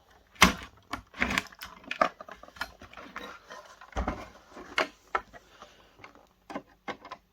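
Irregular clicks, taps and knocks of a plastic projector casing and its parts being handled and pulled apart by hand, with the sharpest knocks about half a second and four seconds in.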